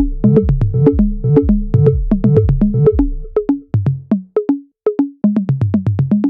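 Electronic music: a fast, even beat of short percussive hits over a deep bass line. About halfway through the bass drops out and the hits thin to sparse, separate short notes with gaps between them.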